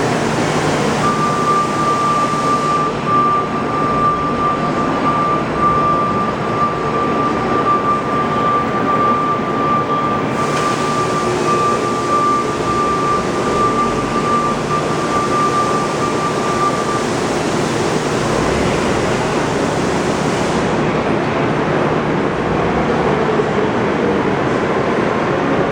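Forrest Model 204 vertical bandsaw running with a 5/8-inch scallop-edge knife blade, cutting through memory foam mattress material with a steady machine noise. A thin steady whine sounds over it and stops about two-thirds of the way through.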